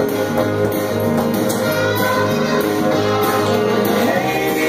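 Recorded pop-rock song playing, in a stretch without singing, with guitar to the fore.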